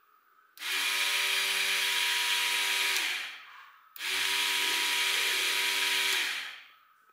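A homemade cordless mixer grinder's 24 V DC motor spinning the blade in an empty stainless-steel jar. It runs twice, about two and a half seconds each time, starting abruptly and winding down after each stop.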